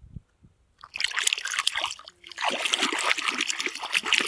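Water splashing and trickling as a muddy toy vehicle is washed by hand, starting about a second in and running on with a brief lull near the middle.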